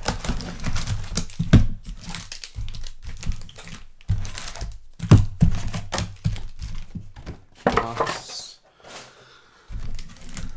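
Packaging crinkling and tearing, with dull thunks of cardboard being handled, as trading-card boxes and packs are opened. The loudest crinkling comes about eight seconds in.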